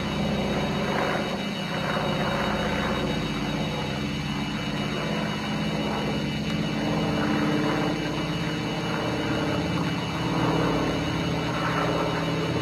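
Twin Wright R-2600 radial piston engines of a North American B-25 Mitchell bomber droning steadily as it flies over.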